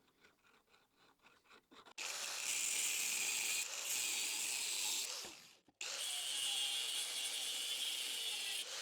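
Steady metal-cutting noise from a shop tool, starting about two seconds in, stopping briefly a little past five seconds, then running on.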